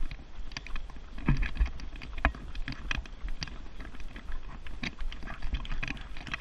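Running footsteps and a Thule jogging stroller rattling as it is pushed along a paved path: irregular clicks and knocks over a steady low rumble of wind on the microphone.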